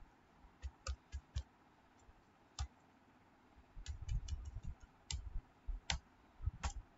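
Computer keyboard keystrokes: irregular single key clicks, with a quicker run of several keystrokes about four seconds in.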